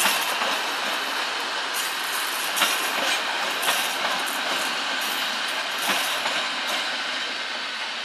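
Passenger coaches of a historic train rolling past slowly: steady wheel-on-rail noise with irregular clicks from the wheels passing over rail joints, easing off near the end as the last car goes by.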